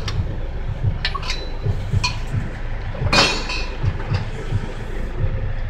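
Scattered light metallic clinks of hand tools against the front shock absorber's lower mount bolt, with a short noisy burst about three seconds in, over a low steady rumble.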